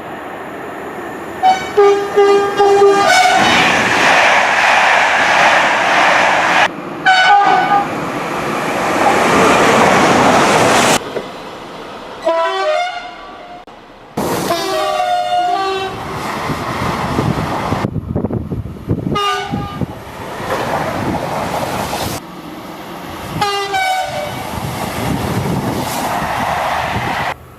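A run of short clips of French trains sounding their horns as they pass, cut one after another: about six brief horn blasts, each followed by the loud rushing noise of a train going by at speed.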